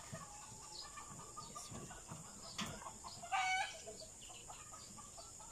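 A chicken clucking, with one short, high call a little over three seconds in, over faint clicks and taps of small plastic plant pots being handled.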